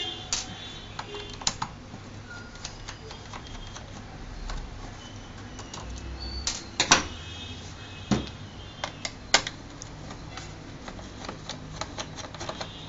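Irregular clicks and taps of a small screwdriver working screws out of a Lenovo G550 laptop's plastic base, with the screws and the case being handled. The sharpest clicks come about seven and nine seconds in.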